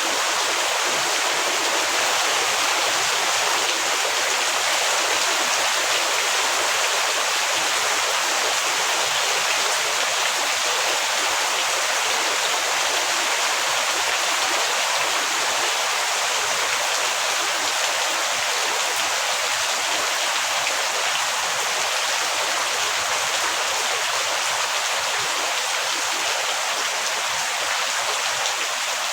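Heavy rain falling in a steady, even hiss, with no breaks or single drops standing out.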